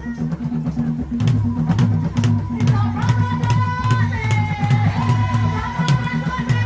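Tumbuka traditional drums played in a fast, dense rhythm, growing louder about a second in. From about three seconds in, a high held tone that wavers slowly in pitch sounds above the drumming.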